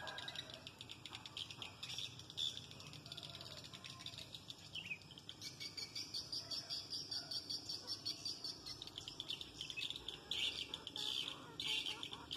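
Swiftlet lure call track: rapid twittering chirps of swiftlets repeated many times a second, with a few louder bursts near the end. This is the calling sound played to attract swiftlets to a nesting house.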